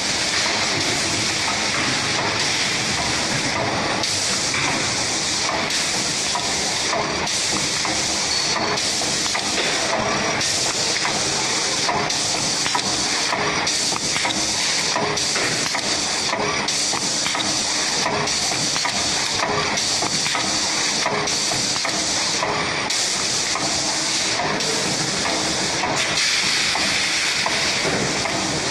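Evaporator core building machine running in a factory: a steady, loud hiss with faint mechanical clicking beneath it.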